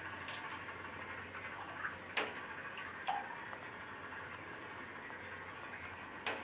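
Water in a bathtub with three sharp drips, about two, three and six seconds in, over a steady low hiss and hum.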